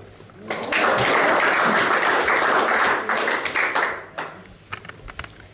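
Small room of people applauding for about three seconds, then a few last scattered claps trailing off.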